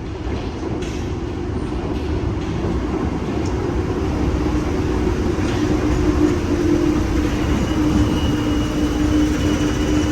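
MF 77 steel-wheeled Paris Métro train running through the station, a steady rumble that slowly grows louder, with a steady hum joining about halfway.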